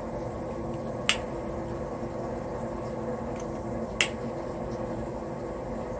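Two sharp clicks about three seconds apart from hands working a wiring connector and heat-shrink tubing, over the steady hum of a fan and a running washing machine.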